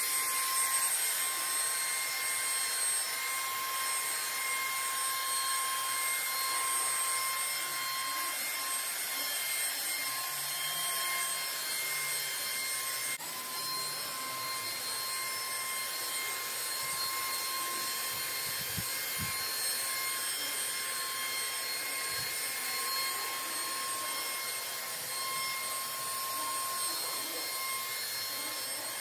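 Small battery-powered handheld electrostatic sprayer running while misting disinfectant: a steady high-pitched whine over an even hiss.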